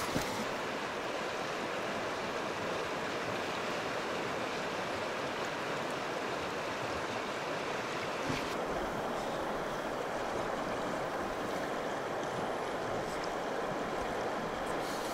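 Shallow river water running and rippling over stones at the bank, a steady rushing noise.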